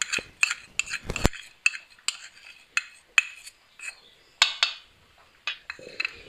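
Steel spoon clinking and scraping against a small bowl and a steel dish as cooking oil is scraped out into flour: a string of sharp, ringing clinks, about two a second, with a dull thump about a second in.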